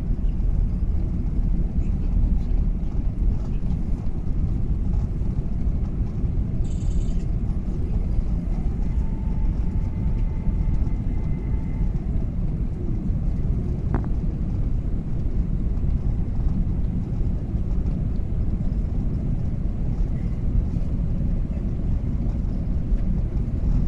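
Steady low rumble of an Airbus A380 in climb, heard inside the passenger cabin: engine and airflow noise. A faint tone glides up, holds and falls away around the middle, and there is a single click a little later.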